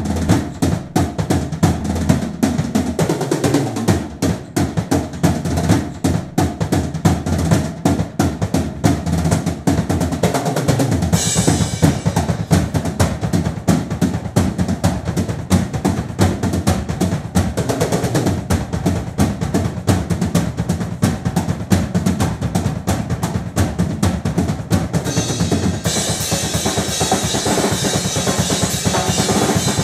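Drum kit played fast and hard in a freestyle solo, dense strokes on snare, toms and bass drum. A cymbal crash flares about eleven seconds in, and a steady wash of cymbals comes in near the end.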